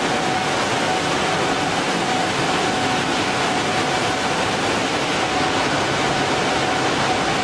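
Plastic-flake color sorting line running: a steady, even hiss of machinery with a faint steady whine through it.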